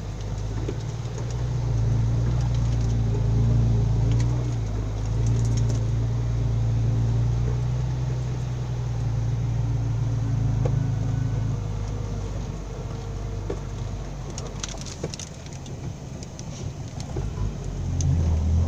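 Isuzu Rocky six-wheel dump truck's diesel engine, heard from inside the cab, revving up about a second in and holding high revs for about ten seconds before easing off, as it drives the PTO hydraulic pump to raise the dump bed. A few rattles come near the end.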